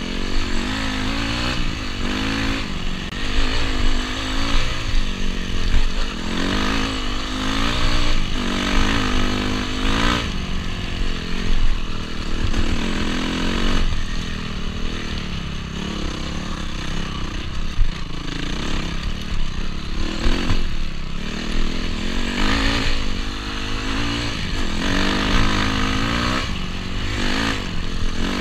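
Honda CRF250R dirt bike's single-cylinder four-stroke engine being ridden hard, its pitch rising and falling every second or two as the throttle is opened and closed.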